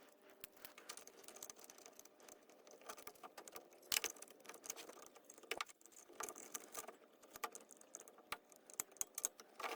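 Light, scattered clicks and taps of small metal carburetor parts being handled as the float is fitted into a Holley 2280 two-barrel carburetor. The loudest click comes about four seconds in.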